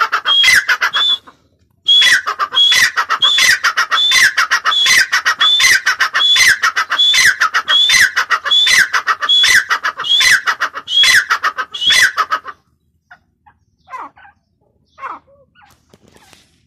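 Grey francolin calling its repeated 'tee-tar' call, each a high note followed by a falling note, almost twice a second. The calling breaks off briefly about a second in and stops about twelve seconds in, with only a few faint notes after.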